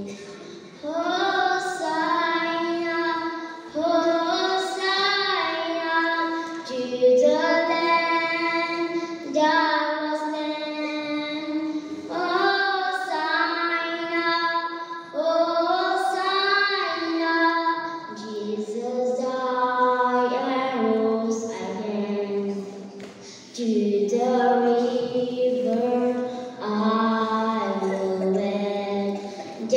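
A young girl singing a solo into a microphone, in sung phrases of a few seconds each with short breaths between them.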